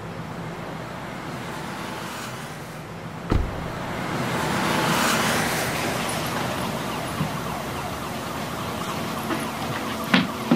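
Street traffic noise: a steady hiss of passing vehicles, swelling as a vehicle goes by about halfway through. A single sharp thump comes about a third of the way in.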